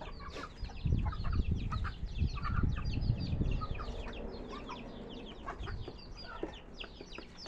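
Chickens at feeding time: many young chicks peeping in quick, short, falling chirps, with some clucking. A low rumble comes in about a second in and fades after about three and a half seconds.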